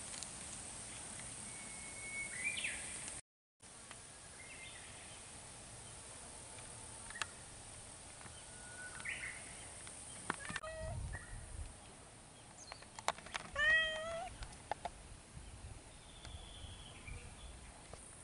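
Cats meowing: a few separate calls, the loudest and longest about three-quarters of the way through, falling slightly in pitch.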